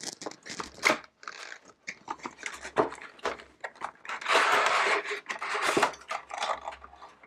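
Retail cardboard box being opened and its packaging handled: a run of clicks, taps and small knocks, with a longer scraping rustle about four seconds in.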